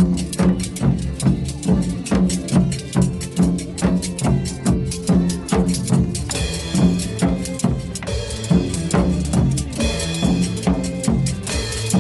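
Janggu hourglass drum struck in a fast, steady rhythm over recorded backing music with a driving beat.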